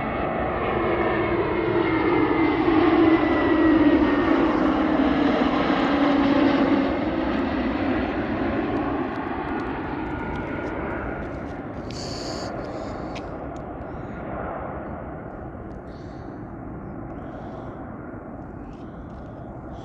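Airbus A321neo jet airliner passing close by: its engine noise builds to a peak a few seconds in, its whine and hum slide down in pitch as it goes past, and then it slowly fades away.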